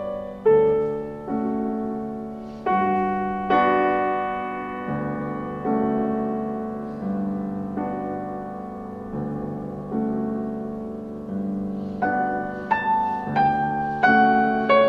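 Piano music: single notes and chords struck and left to fade, a slow melody that picks up pace near the end.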